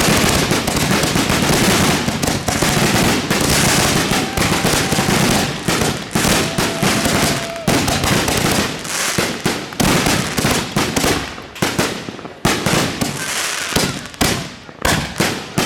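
Fireworks going off in a dense, continuous crackling barrage with bangs, thinning to separate sharp bangs about halfway through. A faint steady whistle sounds briefly about six seconds in.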